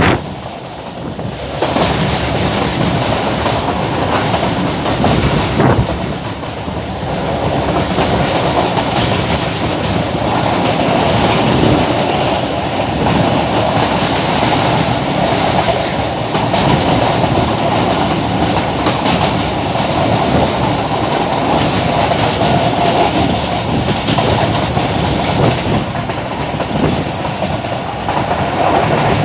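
Passenger train running along the track: a continuous steady running noise of wheels and carriages, dipping briefly about a second in.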